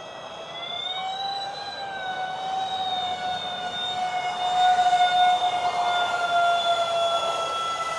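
Electric ducted fans of a Freewing Su-35 model jet whining in flight. The pitch rises about a second in, then slowly sinks, and the sound is loudest around the middle.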